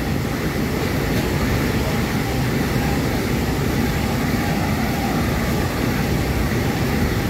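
Freight train rolling past at speed: a steady rumble and rush of wheels on the rails.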